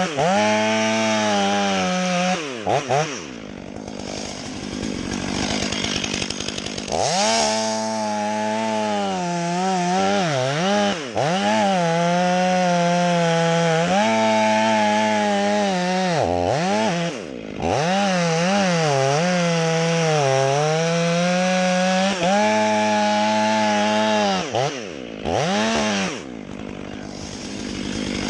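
Two-stroke chainsaw running at full throttle, cutting wood. The engine drops back to a lower, quieter note for a few seconds early on, then revs up again, with several brief dips in pitch where the throttle is eased off.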